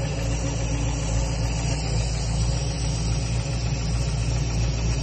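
Ford Performance BOSS 347 small-block V8 crate engine idling steadily. It carries a knock that the owner and a speed shop believe is internal.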